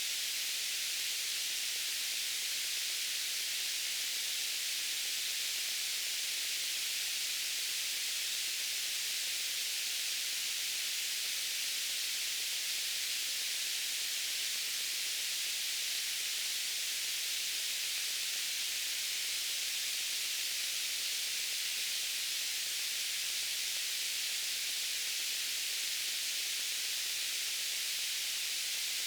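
Steady white noise hiss, even and unchanging, weighted toward the high end with little low rumble.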